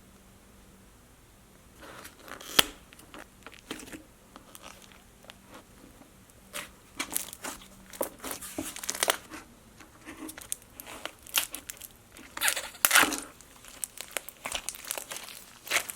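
Slime being squeezed and worked by hand, giving irregular crinkling and crackling sounds that start after a couple of quiet seconds and come in uneven clusters.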